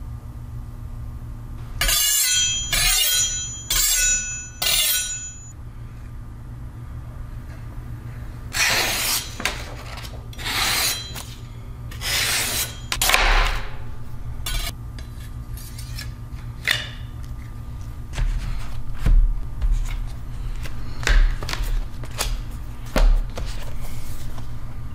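Close handling of a German-steel chef's knife and its packaging: four short scraping bursts with a high metallic ring about two to five seconds in, then several longer sliding swishes as a blade guard is fitted, then scattered taps and soft knocks of the box being handled, over a steady low hum.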